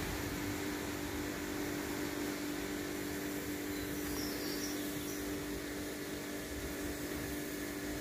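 Street ambience dominated by a steady mechanical hum that holds one pitch, with a faint wash of background noise and no distinct events.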